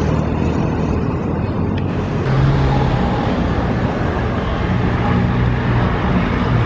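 Road traffic passing close by: a vehicle engine's low drone with tyre and road noise, growing fuller about two seconds in.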